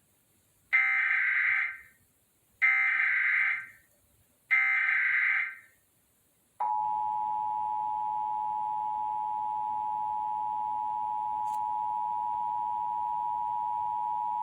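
Emergency Alert System Required Monthly Test: three short bursts of SAME digital header data, about a second each, followed by the EAS two-tone attention signal (853 and 960 Hz) held steadily for about eight seconds.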